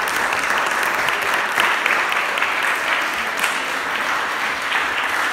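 Audience applauding steadily, a dense patter of many hands clapping in a reverberant hall.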